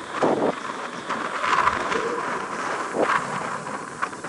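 Distant jet noise of an Airbus A350-900's Rolls-Royce Trent XWB engines as the airliner rolls out after landing. It is an uneven rushing sound that swells and fades several times, mixed with wind on the microphone.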